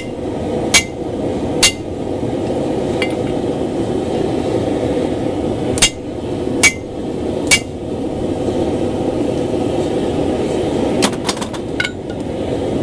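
Planishing hammer striking a hot mild-steel axe billet on the anvil to open up the punched eye: two sharp, ringing blows, then three more, then a quick flurry of lighter taps near the end. Underneath is the steady noise of the running forge.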